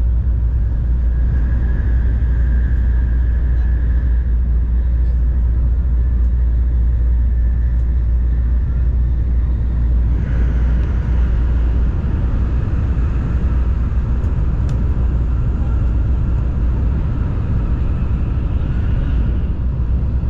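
Steady running noise of an N700-series Tokaido Shinkansen at speed, heard inside the passenger cabin: a deep rumble with a hiss above it. About halfway through, the faint whine in it changes pitch and the low rumble eases a little.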